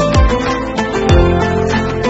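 Intro background music: a plucked-string melody over deep drum hits that slide down in pitch, two of them about a second apart.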